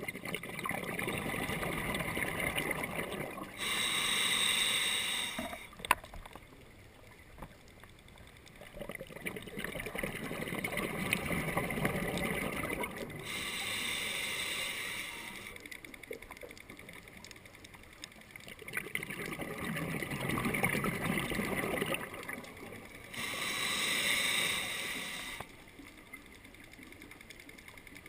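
Scuba diver breathing through a regulator underwater: three slow breath cycles about ten seconds apart, each a long inhale hiss of about three seconds followed by a brighter two-second rush of exhaled bubbles.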